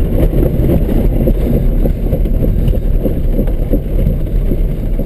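Engine and road noise inside a ZAZ Tavria's cabin as it drives over rough, muddy ground: a steady low rumble from the engine under load, with small irregular knocks from the body jolting.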